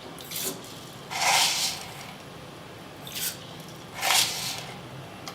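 Four spoonfuls of fenugreek seeds tipped into a pot of water, heard as four short pouring rustles, the second and fourth the loudest.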